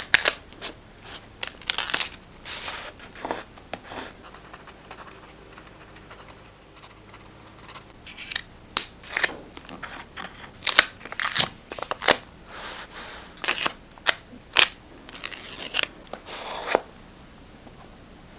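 Scissors snipping paper in short crisp cuts, with paper rustling between them. The cutting pauses for a few seconds early on, then resumes in a quick run of snips that stops shortly before the end.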